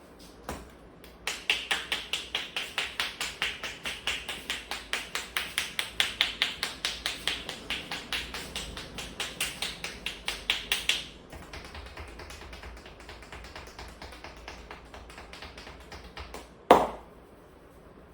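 Hands tapping and slapping rapidly on a head during a head massage, about four strikes a second, then softer, quieter taps. Near the end comes one single loud, sharp crack.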